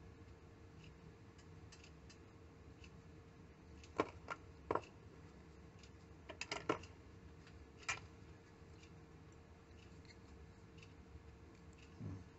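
Handling noise from hand tools and materials at a fly-tying vise: a handful of sharp little clicks and snips, bunched in the middle, then a soft bump near the end, over a faint steady hum.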